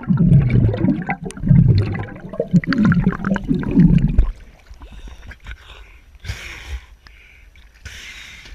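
Muffled underwater bubbling and churning heard through a submerged action camera; about four seconds in it gives way to quieter open-air water sound with two short splashes.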